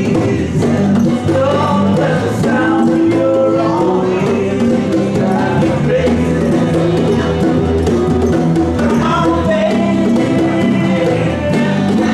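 A small band playing a song live, with bass notes moving under the melody.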